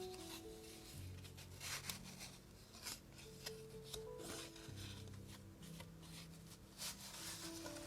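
Paper being handled and rubbed, in short irregular rustles several times, over soft background music with slow sustained notes.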